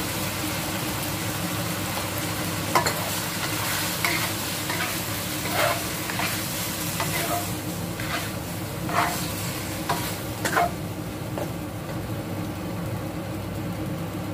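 Chicken and broccoli sizzling in a steel wok while a spatula stirs them, with short scrapes of the spatula against the pan every second or two, over a steady low hum.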